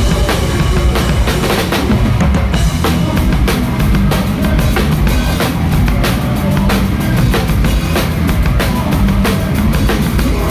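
Hardcore band playing live, with the drum kit loud and up front: kick drum, snare and cymbals hit densely over the rest of the band.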